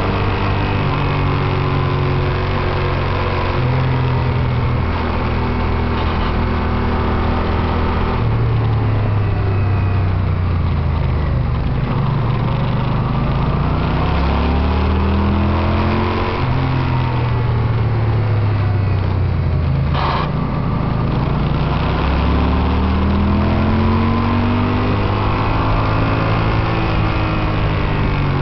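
Yamaha TDM900's 900 cc parallel-twin engine heard from onboard, ridden hard: it repeatedly rises in pitch under acceleration, then steps down at gear changes and when backing off for corners.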